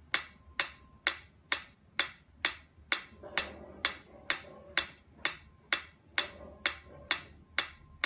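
Mechanical pyramid metronome ticking steadily, about two sharp clicks a second.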